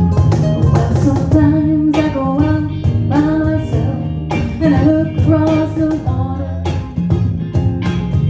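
Band music led by guitar, with a singer's voice carrying a bending melody over steady chords, no clear words.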